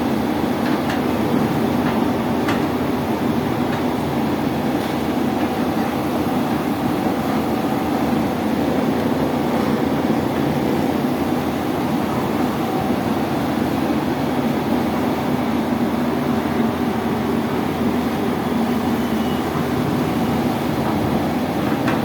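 Hyundai long-reach excavator's diesel engine running steadily, a constant even drone with no change in pitch.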